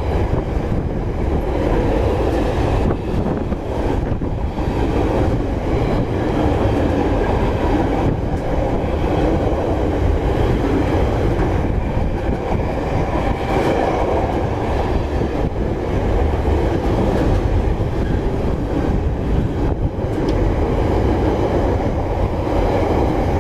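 A freight train's empty gypsum container wagons rolling past close by: a steady rumble with the clickety-clack of wheels over the rails.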